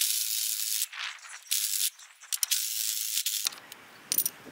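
Cordless drill driving the threaded rod of a coil spring compressor to let the spring down, running in three bursts. It stops about three and a half seconds in, and a couple of light clicks follow.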